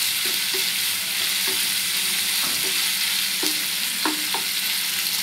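Sliced onion, tomato and capsicum sizzling in hot oil in a kadhai while being stirred with a wooden spatula. There is a steady hiss of frying, with light scrapes of the spatula against the pan and two sharper strokes about four seconds in.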